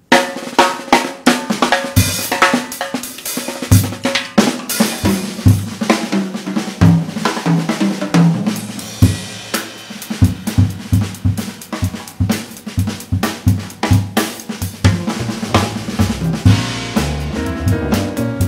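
Drum kit playing live in a busy groove: snare and rimshots, bass drum, hi-hat and cymbals, in fast, dense strokes. Near the end, sustained instruments join in as the band comes in.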